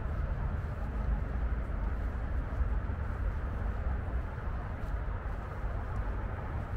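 Steady low rumble of distant road traffic, an even wash of sound with no distinct vehicles passing.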